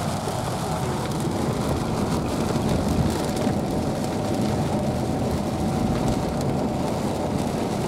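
Steady noise inside a car's cabin while driving in heavy rain: road and engine noise mixed with rain on the glass and body.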